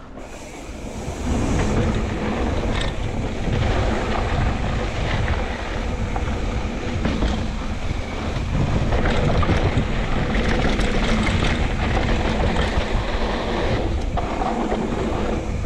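Wind buffeting the microphone while a mountain bike clatters over a rough downhill trail, with many small knocks and rattles. It builds up about a second in as speed picks up, then stays loud and steady.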